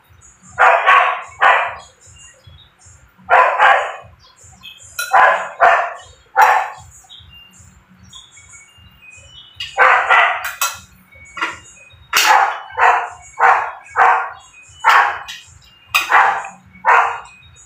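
A dog barking repeatedly: about fifteen loud barks in short runs of two or three, with a pause of a few seconds in the middle. Underneath is a faint, fast, even low pulsing.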